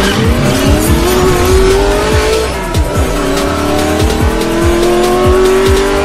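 Electronic intro music with a steady drum beat, layered with a race-car engine revving sound effect whose pitch climbs, dips about halfway through, then climbs again.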